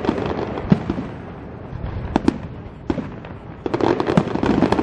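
Aerial firework shells bursting: a string of sharp bangs over a continuous rumble, a few spaced out early, then more rapid bangs and crackling near the end.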